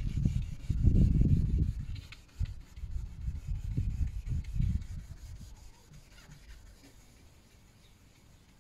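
Fine-grit (2000–2500) wet-and-dry sandpaper rubbed back and forth by hand over a hazy plastic headlight lens, wet-sanding off the heat haze. The uneven rubbing strokes die away about halfway through.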